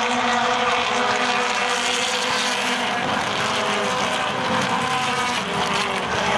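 A pack of BTCC touring cars, turbocharged four-cylinder engines at high revs, passing one after another at the start of the race, several engines overlapping with pitches rising and falling as they go by.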